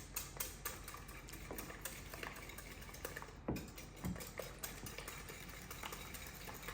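Eggs being stirred by hand in a bowl: faint, irregular clicks and taps of the utensil against the bowl, several a second.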